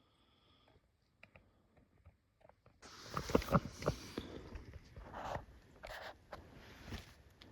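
A few faint clicks, then about three seconds in a burst of close rustling and crunching that lasts around four seconds, loudest at the start, then dies down to scattered clicks.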